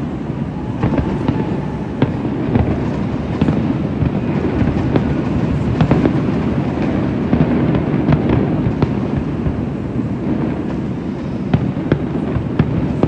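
Aerial fireworks bursting in quick succession: a continuous run of booms with many sharp cracks throughout.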